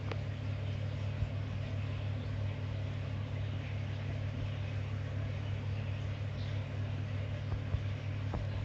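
A steady low hum with a few faint ticks.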